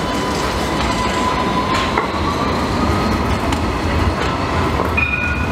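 Alstom Citadis 305 tram set passing close by: a low rumble of steel wheels on the rails, with a thin steady whine that rises slightly about two seconds in and a couple of sharp clicks. A short higher tone sounds near the end.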